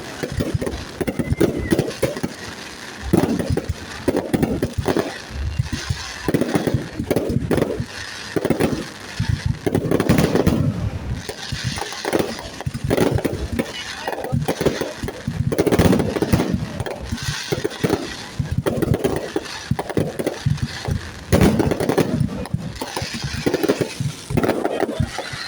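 Fireworks display: a continuous run of firework bursts, booms and crackles following one another irregularly, with voices in the background.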